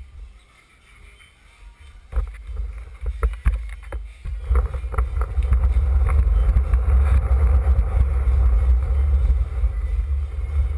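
Skateboard wheels rolling over a hardwood floor, heard as a steady low rumble through a camera mounted on the board. It starts about four seconds in, after a few sharp knocks and clicks on the deck.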